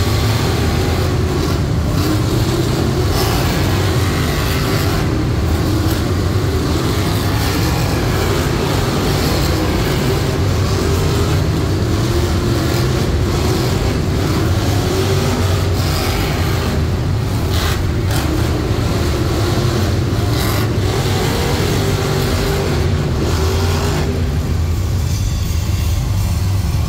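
Monster truck engines, supercharged V8s, running and revving: a loud steady deep rumble whose pitch rises and falls again and again, thinning out a little near the end.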